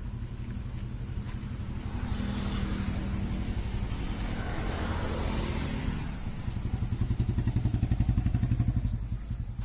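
A motor vehicle's engine running nearby: a steady low rumble, with a passing swell of noise in the middle, and the rumble growing louder near the end.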